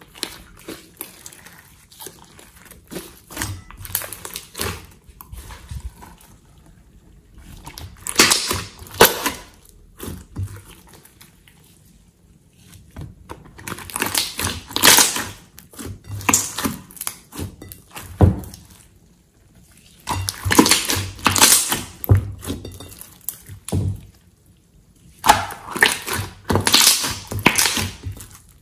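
Hands squeezing and kneading a thick mass of slime, making runs of wet clicks and pops that come in stretches of a few seconds with quieter pauses between.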